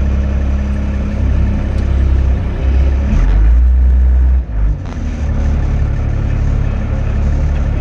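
Vehicle engine running steadily with a low hum. It swells louder about three seconds in, then dips briefly at about four and a half seconds before settling back.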